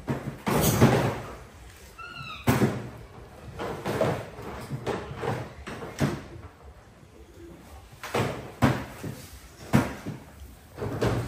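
Irregular knocks and bangs, several of them sharp, with one short high squeak about two seconds in.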